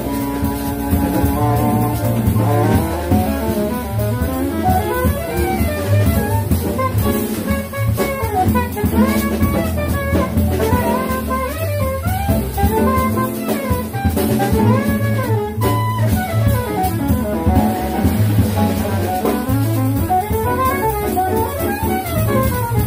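Small jazz band playing live: saxophone carrying melodic lines over piano, double bass and drum kit.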